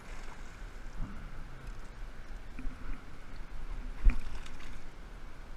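Hooked largemouth bass splashing at the surface beside a small boat, with one sharp slap about four seconds in as the fish is grabbed by hand.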